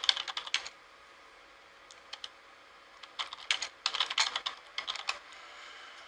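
Typing on a computer keyboard: quick runs of keystrokes, a burst at the start, a couple of lone taps about two seconds in, then a longer run from about three to five seconds in.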